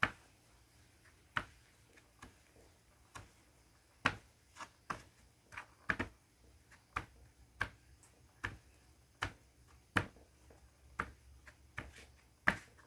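Coloured naphthalene mothballs being crushed under a gloved hand: a series of sharp, crisp snaps, a few at first, then about one or two a second from about four seconds in.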